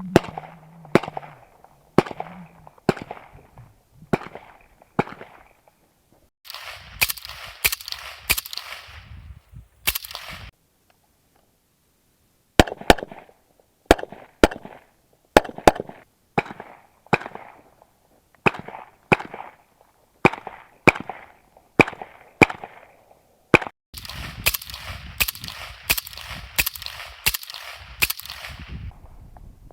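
Saiga M3 AK-pattern semi-automatic rifle firing through a suppressor, which makes its shots fairly quiet. The shots come about once a second at first, then in quicker strings, and there is a short break about a third of the way in.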